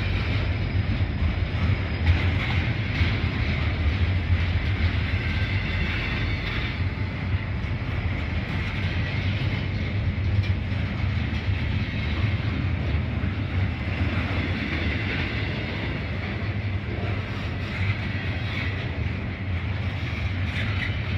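Norfolk Southern double-stack container freight train rolling past close by, a steady low rumble of wheels on the rails.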